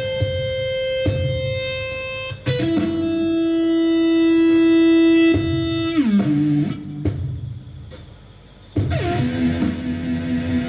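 Electric guitar playing long held notes over a low rumbling drone; about six seconds in the note glides down in pitch and fades, then new sustained notes come in near nine seconds.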